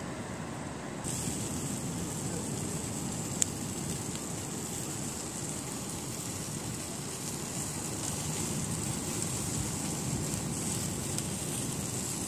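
Outdoor wind rumble on the microphone with sea surf, overlaid by a thin, steady high sizzle of sausages cooking on a disposable foil-tray barbecue that comes in about a second in. One sharp click a few seconds in.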